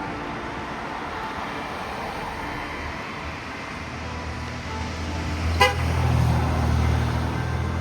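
A road vehicle's engine rumble builds through the second half. A short, sharp horn toot comes about two-thirds of the way in. Faint church bell tones ring on underneath.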